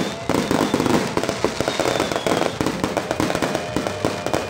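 Aerial fireworks bursting overhead: a rapid, dense run of bangs and crackles.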